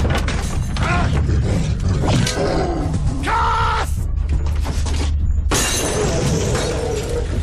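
Crashing and clattering, as of things being smashed and knocked over, with several loud cries or screams over a low rumbling drone. One cry falls in pitch about two seconds in, and a held cry follows about a second later.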